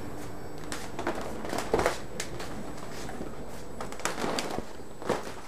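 Clear plastic strip curtain rustling and clacking as a person pushes through it: a series of irregular crackles and knocks, loudest about two seconds in, over a steady room hum.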